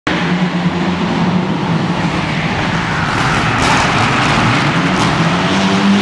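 Mitsubishi Lancer Evolution X rally car's turbocharged four-cylinder engine running hard as the car drifts, with a couple of sharp cracks about three and a half and five seconds in.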